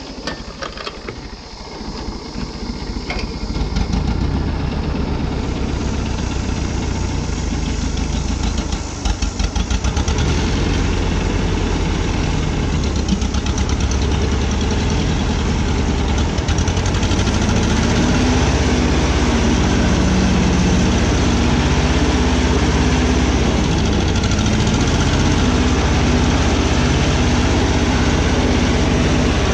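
Ford 2000 tractor's gasoline engine, running on a newly installed carburetor, pulling the tractor along. It picks up over the first few seconds, then runs steadily under way.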